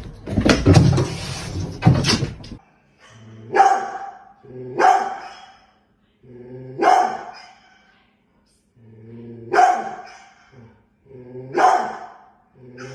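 A dog barking about six times, each bark drawn out to nearly a second, with one to three seconds between barks. The first two and a half seconds hold a loud, dense noisy sound.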